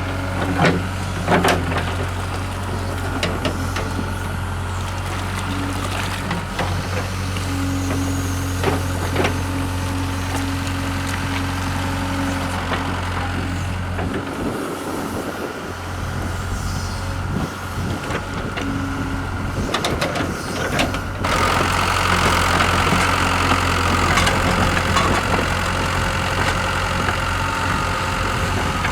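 Hitachi hydraulic excavator's diesel engine running steadily, with a low drone, a held whining tone from the hydraulics, and a few knocks near the start; the engine note grows louder about two-thirds of the way through as it works under more load.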